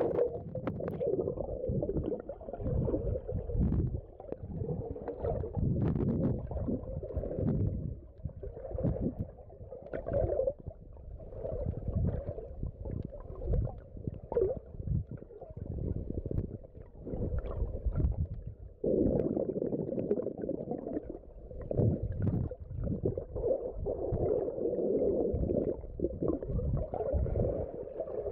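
Muffled underwater water noise picked up by a submerged phone camera in shallow sea water: uneven gurgling and rumbling that swells and fades every second or two, with faint scattered ticks.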